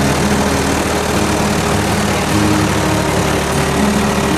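Engine of a 1969 Ford farm tractor running steadily at low idle, under background music.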